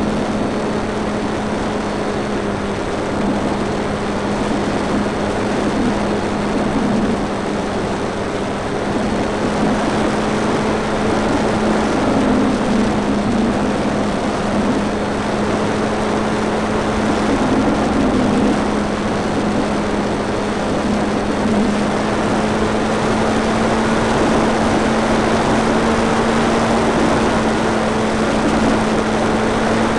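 Onboard sound of a Multiplex FunCub RC model plane in flight: its electric motor and propeller hum steadily, with heavy wind noise on the small onboard camera's microphone. The hum rises slightly in pitch toward the end.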